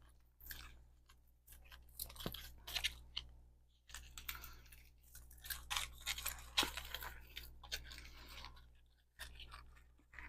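Faint, irregular crinkling and small clicks of jewelry and its packaging being handled by hand.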